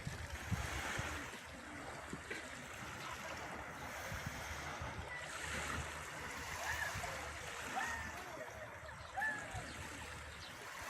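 Sea waves washing on the shore as a steady surging hiss, with low rumbling near the start. Faint distant voices come through in the second half.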